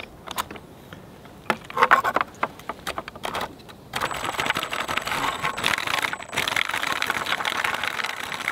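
Metal roller chain clicking and clinking as it is handled and fitted onto its sprockets. From about four seconds in, a dense, steady rattle follows, which fits the brushless motor running the chain drive and spinning the studded rear wheel.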